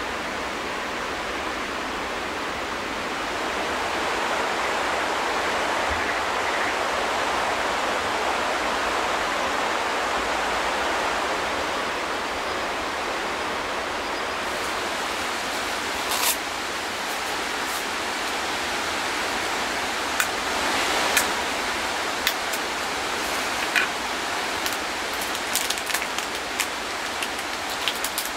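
Steady rain falling with a constant hiss, with scattered sharp ticks and taps from about halfway on.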